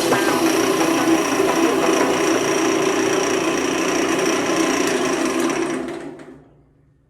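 Harbor Freight benchtop lathe running with a steady mechanical whir and a thin high whine. It fades out about six seconds in.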